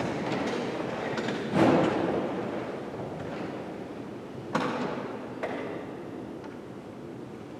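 Shuffling and movement of people in a church, with thumps: a sharp one about one and a half seconds in and two more at about four and a half and five and a half seconds, each dying away in the room's echo.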